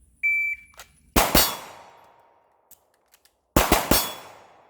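Shot timer beeps, and about a second later two pistol shots ring out close together on steel targets. After a pause for a tactical reload, three more quick shots follow, with the steel ringing as each volley fades.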